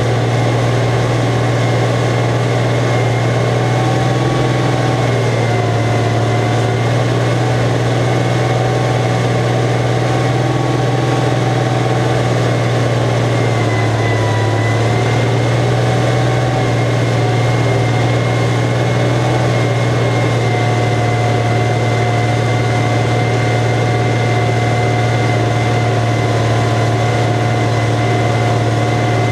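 Deutz D 13006 tractor's air-cooled six-cylinder diesel engine running steadily under load, heard from inside the cab: a low drone with a high whine over it. The engine speed sags and recovers briefly about 14 seconds in.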